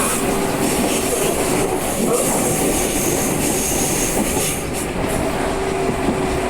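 CPTM Series 2000 electric train running, its ADTranz GTO VVVF traction inverters and motors giving steady tones over the continuous rumble and clatter of wheels on rails. The uploader calls it a growl and finds it a little different from the usual sound.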